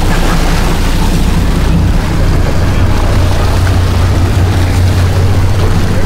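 Steady low rumble of an offshore fishing boat's engines running at idle, mixed with wind buffeting the microphone, with no break or change.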